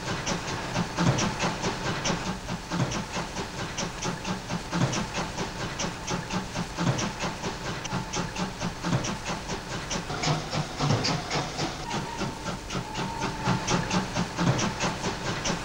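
A line of coupled steam locomotives running past, their exhaust chuffing in rapid, steady beats over a hiss of escaping steam.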